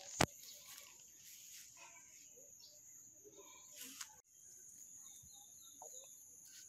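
Steady, high-pitched chorus of insects, with a quick run of four bird chirps a little after five seconds in. A sharp click just after the start is the loudest sound, and another click comes at about four seconds.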